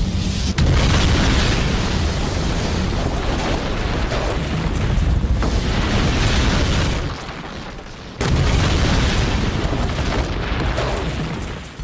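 Dramatized sound effects of a Boeing 737 airliner crashing: a loud, deep rumbling roar that starts with a sharp impact about half a second in, sags briefly about seven seconds in and slams back in suddenly about eight seconds in.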